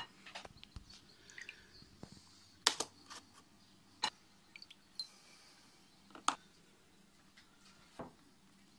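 Sparse light taps and clicks, about half a dozen spread over several seconds, as milk-soaked biscuits are set down in a plastic dish lined with parchment paper.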